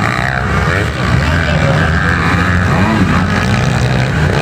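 Several motocross dirt bike engines racing, their pitch rising and falling with throttle and gear changes and overlapping one another.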